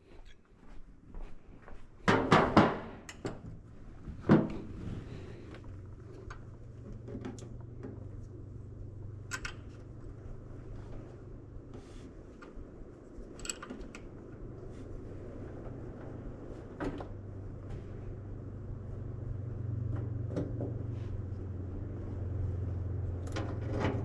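Knocks and clicks of hand tools and metal parts being handled during work on a truck engine, loudest about two and four seconds in. Underneath, a steady low hum sets in and grows louder over the last few seconds.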